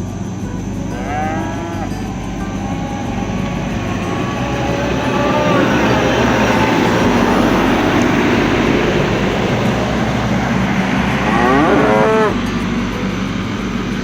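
Cattle mooing: a call about a second in, another around five seconds, and the loudest near twelve seconds, over a steady noisy rumble that swells through the middle.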